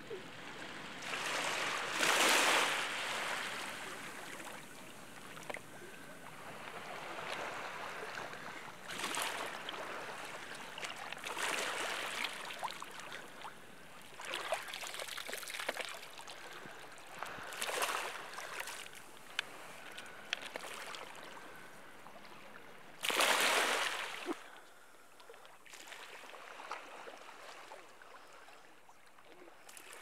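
Shallow seawater splashing and lapping in separate surges every few seconds, with small drips and clicks between them. The loudest surges come about two seconds in and again later on.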